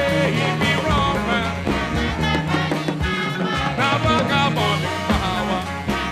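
Large Afrobeat band playing live: a steady bass and drum groove with horns and percussion, and some singing.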